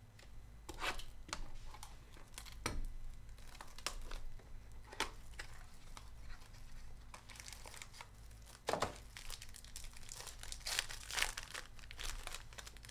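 Hands opening a Donruss Optic Choice trading-card box and tearing open its foil card pack: a string of short crinkling and tearing rustles, a few of them louder.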